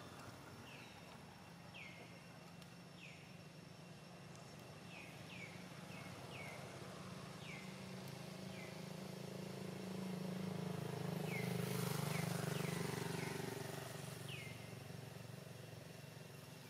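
A motor vehicle passes, its engine hum building to its loudest about twelve seconds in and then fading away. Through it come repeated short, high, falling chirps.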